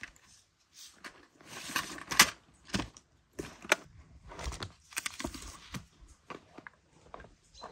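A school bag being unpacked: rustling, with irregular clicks and knocks as a pencil case, a metal tin and a notebook are taken out and set down on a wooden table. The sharpest knock comes about two seconds in.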